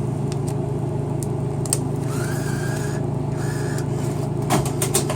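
Dollar bill acceptor on a Dixie-Narco can vending machine taking a bill. There are a few clicks, then the acceptor's motor whirs for about a second and again briefly as it draws the bill in. Near the end comes a quick run of sharp metallic clicks as the changer pays out coins, all over a steady hum.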